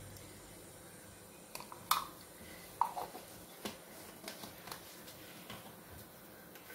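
Hand tossing and mixing soft idiyappam (rice string hoppers) with grated coconut in a metal kadai: a faint soft rustle with scattered light clicks and taps against the pan, the loudest about two and three seconds in.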